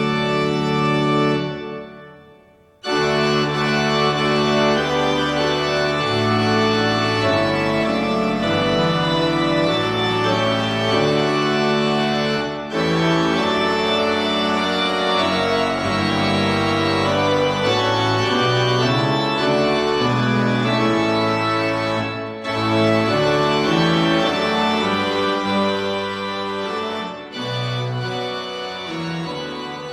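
Organ playing slow music in sustained chords. It fades and stops about two seconds in, starts again a moment later, and pauses briefly between phrases.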